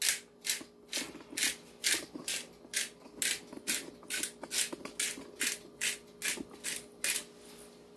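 Handheld peppercorn grinder being twisted, cracking whole peppercorns with a gritty crunch on each twist, about three a second, stopping near the end.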